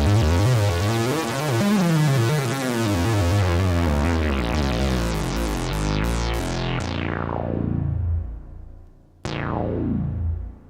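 ARP 2600 analogue synthesizer sounding a patched effect. First comes a dense, wavering, warbling tone, then several falling pitch sweeps that drop from high to low and die away, the last one about nine seconds in.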